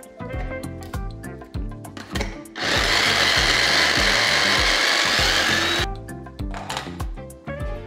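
SilverCrest electric mini chopper running for about three seconds, pressed down by hand as it chops onion and parsley. It starts suddenly about two and a half seconds in and stops suddenly near six seconds. Background music with a steady beat plays under it.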